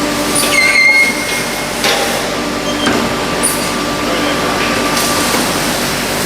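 Factory floor noise: machinery running with a steady hum, a brief high whine about a second in, and a few metallic knocks.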